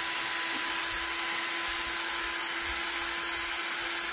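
Cordless drill running steadily at one speed, turning a small wire wheel brush inside a carburettor float bowl to scour out old dirt: a steady motor whine over a scratchy hiss.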